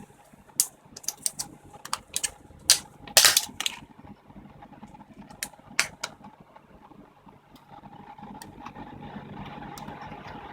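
A quick run of sharp small clicks and taps in the first few seconds, then a few faint ticks: hands handling a laptop-style RAM stick and its plastic packaging while fitting it into a mini PC.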